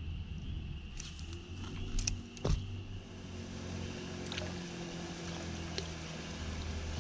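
Steady low drone of a distant engine holding a constant pitch, with a few sharp clicks; the loudest is a single knock about two and a half seconds in.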